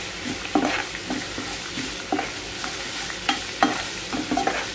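Cumin seeds and whole spices sizzling in hot oil in a kadhai while a metal spatula stirs them, scraping and tapping against the pan about two or three times a second over a steady hiss.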